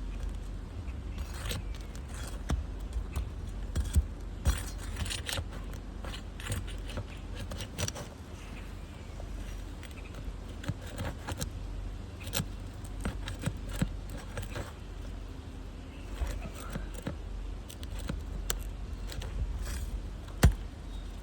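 Hands and tools working on asphalt roof shingles: irregular scrapes, clicks and crackles, with a sharp knock about 4 seconds in and another near the end, over a steady low rumble.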